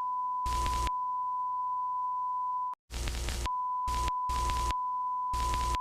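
Steady high test tone, like a broadcast alert tone, interrupted five times by short bursts of harsh static. About three seconds in, everything cuts out for a moment before the static and tone return: a mock signal-hijack effect in an emergency-alert broadcast.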